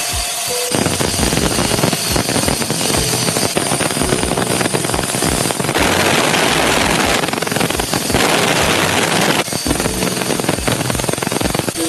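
Power tool cutting into wood, running loudly with a fast pulsing chatter. It starts just under a second in and turns harsher twice, around six and again around eight seconds in, as it bites harder into the timber.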